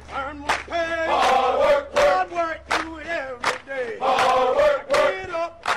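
A group of men shouting and chanting in unison, as military recruits in basic training do, with sharp hits between the shouted phrases.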